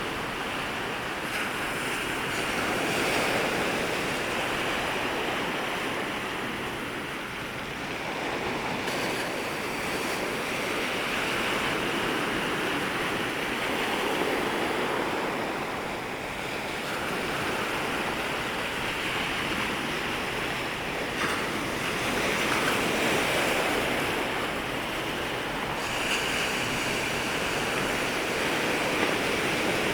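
Ocean waves breaking and washing up the shore at the water's edge, a continuous surf hiss that swells and ebbs every few seconds as waves overlap.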